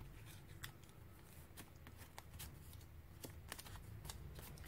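Near silence with faint handling noises: scattered light clicks and soft rustles of paper and craft supplies being moved about.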